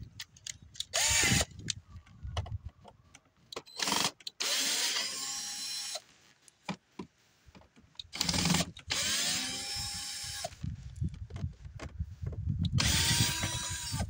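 Cordless drill-driver backing out the three screws that hold a car's inner door handle. It runs in several short bursts of one to two seconds, the motor whine rising as it spins up and then holding steady, with small handling clicks between the bursts.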